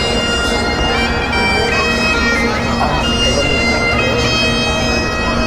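Great Highland bagpipe playing a tune over its steady drones, the chanter stepping quickly from note to note, with people talking faintly in the background.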